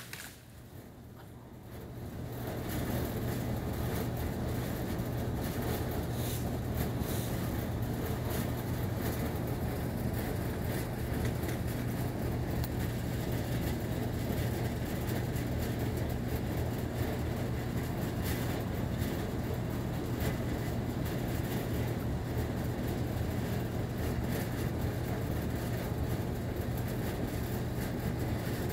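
A chainsaw engine comes up over the first two seconds or so, then runs steadily on one even note.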